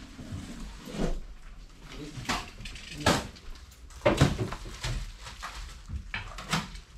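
Scattered short clicks and rustles, one every second or so, from handling plastic-packaged fishing lures hanging on display pegs; a hand touches a packet near the end.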